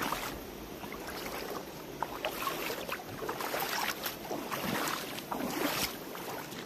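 Rushing, splashing river water, a steady noisy wash broken by many small irregular splashes.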